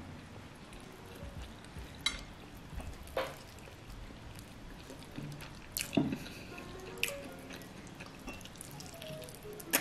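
Eating fried chicken close to the microphone: wet mouth clicks and smacks of chewing, a few sharp ones scattered through, the strongest about six seconds in. Faint background music underneath.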